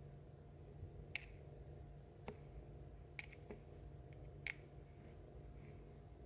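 About five faint, sharp clicks or taps at uneven intervals over quiet room tone with a low hum.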